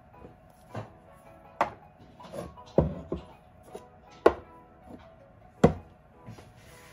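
Soft background music with sustained tones, cut through by several sharp, irregularly spaced knocks, the loudest two about four and five and a half seconds in.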